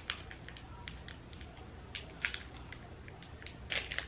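Scattered short, crisp crackles and clicks of fingers breaking up a small crunchy item held out to a cat, loudest in a quick cluster near the end.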